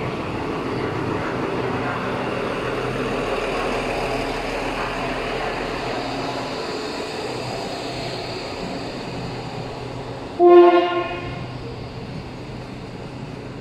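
Duewag BR928 diesel multiple unit running with a steady rumble that slowly fades. About ten seconds in comes one short, loud horn blast on a single note.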